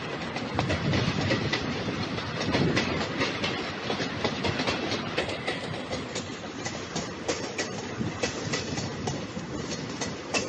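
Train rolling along, its wheels clattering over the rail joints in many sharp clicks over a steady rumble.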